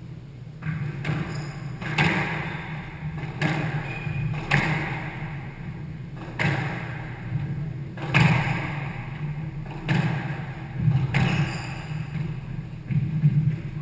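Squash rally: the rubber ball cracking off rackets and the court walls about once a second, each hit a sharp pop with a short ring of echo.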